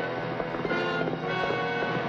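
Orchestral background music with sustained held notes.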